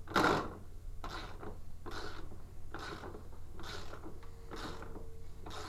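Ratchet wrench tightening the wheel nut on a Power Wheels ride-on car's axle, a short ratcheting stroke about once a second, run down until the nut stops.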